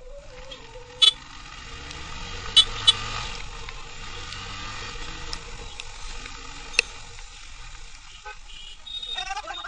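Road and traffic noise with a hiss of rain, picked up by a camera on a motorcycle riding in the rain. A few sharp taps stand out: one about a second in, two close together near three seconds, and one near seven seconds.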